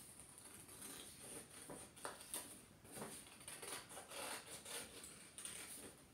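Scissors snipping through coloured paper while cutting out a drawn hand shape, with quiet snips at an uneven pace and the paper rustling in the hand.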